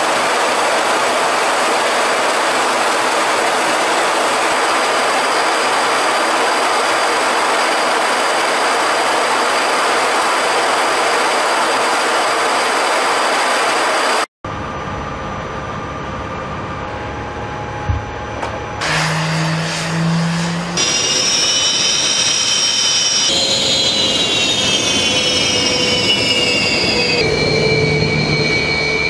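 Su-27 fighter's twin turbofan jet engines: first a steady rushing noise of the jet in flight, heard from inside the cockpit; after a cut about halfway through, a high multi-toned turbine whine whose pitch slides slowly downward.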